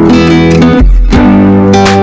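Background music led by guitar with a strong bass line, changing chord about a second in.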